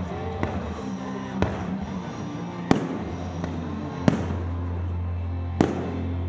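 Fireworks bursting in the sky: five sharp bangs, a second or so apart, the loudest two in the middle. Music plays underneath throughout.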